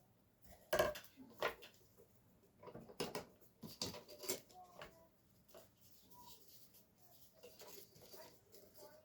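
Clicks and clatter of a sanding belt being swapped on a belt knife sharpener, switching from the coarse belt to a medium one. There is a sharp knock about a second in, a few more knocks between three and four and a half seconds, then light handling sounds, with no motor or grinding.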